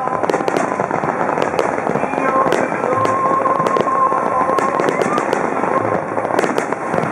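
A starmine fireworks barrage: a rapid run of sharp pops and bangs with crackling stars, over music playing as the show's soundtrack.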